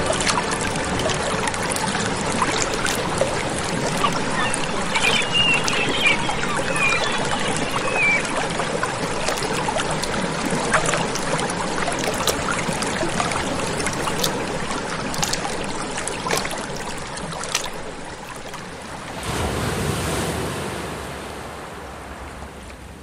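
Waves and lapping water with many small splashes, swelling into a brief rushing surge near the end before fading.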